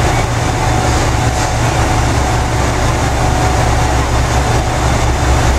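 JR Shikoku 2000 series diesel railcars idling at a standstill: a steady, low engine throb with a faint steady whine above it.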